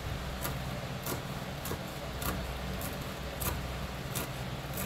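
A chef's knife chopping fresh coriander leaves on a plastic cutting board: uneven sharp knocks, about two a second, over a steady low hum.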